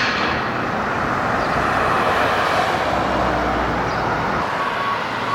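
Road traffic noise, with a vehicle passing close by and the sound swelling and fading. Near the end a vehicle's reversing beeper starts its evenly spaced beeps.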